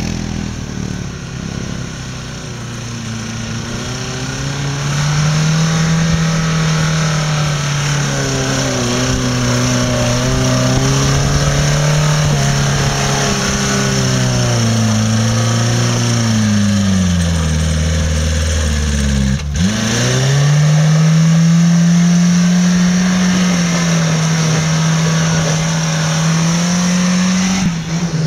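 Off-road 4x4's engine revving hard under load, its pitch rising and falling with the throttle. About two-thirds through the revs sink low and cut out for an instant, then climb back and hold high to the end.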